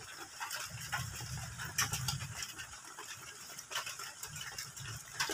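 A person chewing a mouthful of catfish, with wet lip smacks and scattered sharp mouth clicks over a low murmur of chewing.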